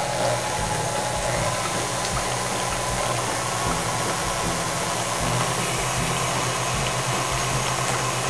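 KitchenAid Ultra Power stand mixer running steadily, its motor drone and beater churning butter and eggs in a stainless-steel bowl.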